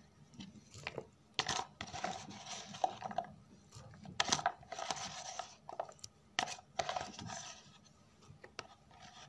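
Kitchen handling sounds: a scatter of irregular light clicks, knocks and short rustles, sparser over the last couple of seconds.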